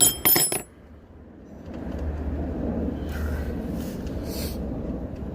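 A few sharp metallic clinks with a bright, high ring right at the start, from metal tools or hardware knocking together, followed by a steady low rumble.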